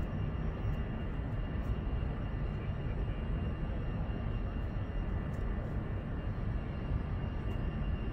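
Steady low rumble and hiss of a large indoor sports hall's background noise, with faint steady high tones running through it.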